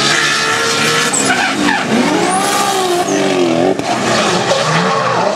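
Two drift cars, one of them a BMW, sliding in tandem: engines revving up and down over the screech of spinning, sliding tyres.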